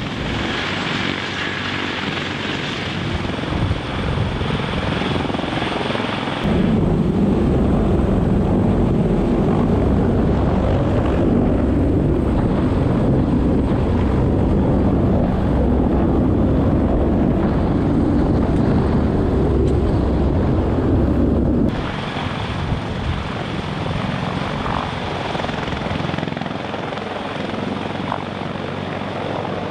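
Sikorsky CH-53K King Stallion heavy-lift helicopter hovering close by, its three turboshaft engines and rotor downwash making a loud, steady din. About six seconds in, the sound abruptly becomes louder and deeper, with rotor wash buffeting the microphone from right under the aircraft. It switches back to a lighter rotor din near the end.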